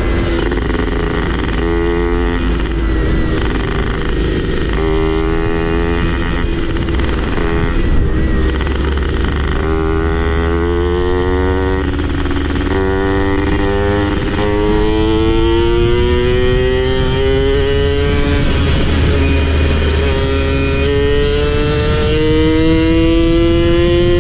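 Two-stroke motorcycle engine accelerating hard through the gears. Its pitch climbs and drops back at each shift, several times over, above a steady low rumble.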